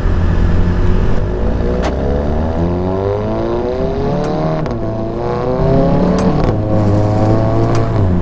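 Volkswagen Mk7 Golf GTI's turbocharged 2.0-litre four-cylinder, Stage 2 tuned with a catted downpipe, accelerating through the gears. The engine note rises in pitch, drops at a gear change about halfway through, rises again and then holds steady, with a few short sharp clicks along the way.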